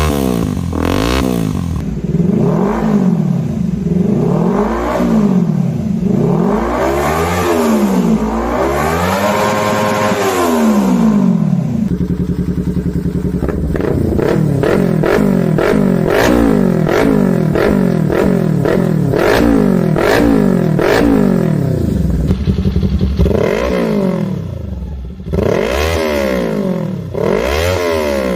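Small-displacement Kawasaki Z-series motorcycles, 200 to 400 cc, revved in turn: each engine's pitch climbs and falls again and again in quick throttle blips. The sound changes abruptly a few times as one recording gives way to the next.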